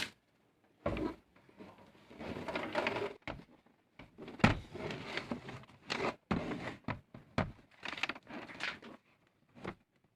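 Knocks, scrapes and thuds of a 32-inch LED TV's casing as the set is handled and turned over, with a sharp knock about four and a half seconds in.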